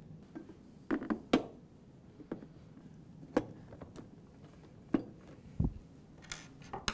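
A metal tube bar being handled and fitted into a kids' ride-on kart's plastic body: scattered light knocks and clicks of tube on plastic, with a dull thump about five and a half seconds in.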